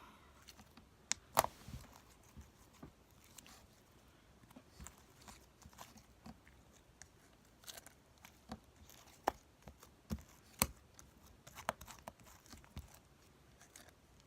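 Slime being handled, squished and pulled apart, giving irregular sticky clicks and pops, a few of them sharper.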